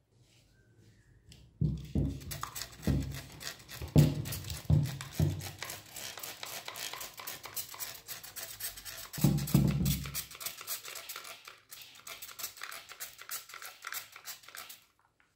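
Trigger spray bottle squirted again and again onto a brass vase: a quick run of spritzes and trigger clacks, starting about a second and a half in and stopping just before the end.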